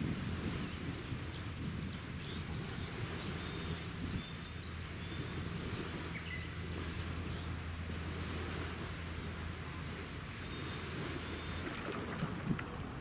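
Small birds chirping over and over, above a steady low hum from a passing warship's machinery. About a second before the end, the hum and the chirps stop and gusty wind noise on the microphone takes over.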